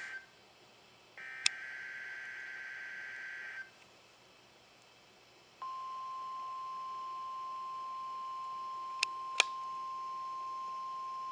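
Emergency Alert System test from NOAA Weather Radio: the warbling two-tone SAME header data bursts, one just ending and another lasting about two and a half seconds. After two seconds of quiet the steady 1050 Hz weather-radio alert tone begins and holds. Two sharp clicks sound near the end.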